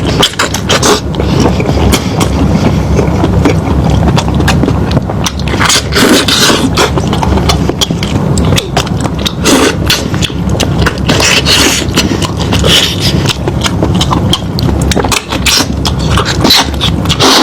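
Close-miked eating sounds: chewing and mouth smacking on meat, with many irregular wet clicks and scrapes.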